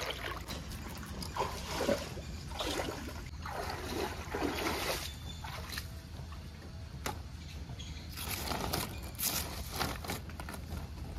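Flowing stream water trickling and sloshing, with irregular rustles and a few light knocks as a bundle of fresh drumstick pods is laid on a rock and spread out by hand.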